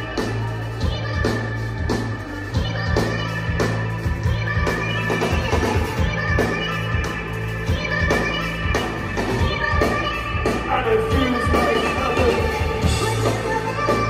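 Live rock band playing through a large PA system: drums, bass guitar, electric guitar and synthesiser, with a sustained low bass note under regular drum hits.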